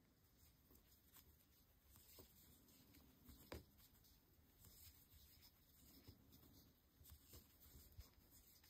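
Near silence with faint small ticks and rustles of a crochet hook and yarn being worked by hand, and one sharper tick about three and a half seconds in.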